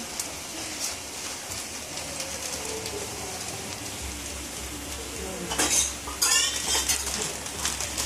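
Dry instant noodle cakes breaking up and pattering into an aluminium pot, with plastic noodle packets crinkling as they are emptied; the loudest crackles come a little past the middle.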